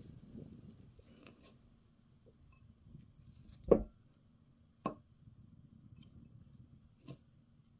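Wooden spoon mixing rice, cockles and chives in a ceramic bowl: soft squishing and stirring, with three sharp knocks, the loudest a little under four seconds in.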